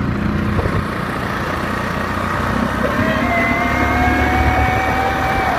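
ATV engine running as the quad drives along a dirt track, with a thin steady whine joining about three seconds in.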